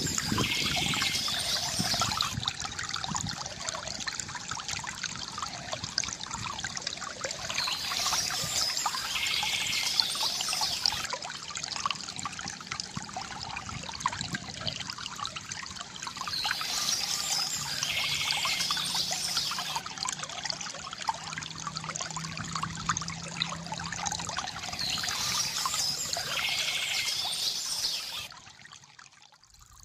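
River water gurgling and trickling, with a bird's chirping call coming back about every nine seconds. The sound drops away suddenly near the end.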